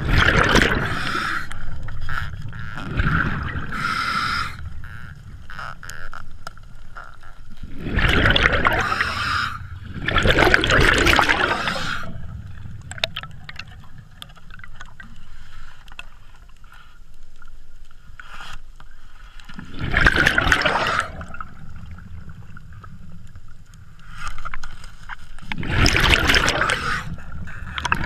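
Scuba diver breathing through a regulator underwater: exhaled bubbles rush out loudly past the camera in several bursts a few seconds apart, with quieter stretches between breaths.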